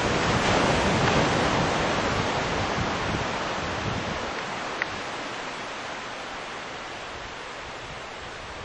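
Wind rushing over the microphone, a steady hiss that is loudest in the first couple of seconds and slowly fades.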